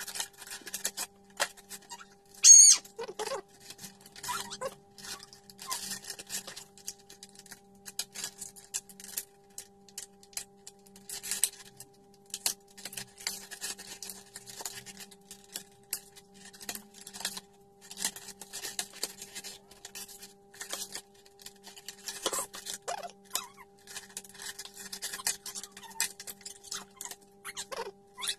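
Plastic packaging crinkling and rustling in the hands as a toy box is opened and a clear plastic bag of small water beads is handled, with a brief, loud, high squeak about two and a half seconds in. A faint steady electrical hum sits underneath.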